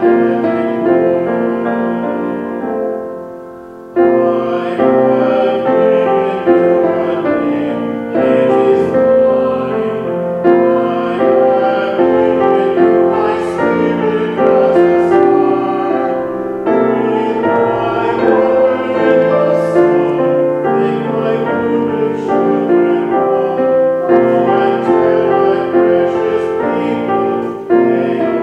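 Piano music with a voice singing over it. The music dies away to a near stop about four seconds in, then starts again and runs on.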